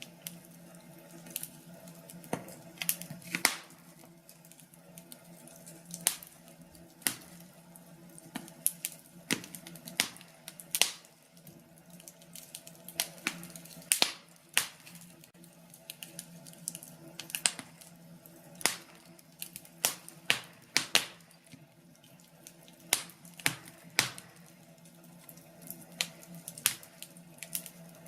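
Wood fire crackling in a fireplace, with sharp irregular pops and snaps over a steady low hum.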